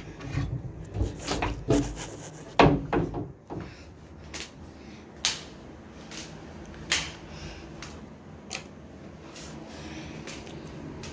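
A wardrobe door being opened: a cluster of knocks and rubbing in the first few seconds, then a few light clicks.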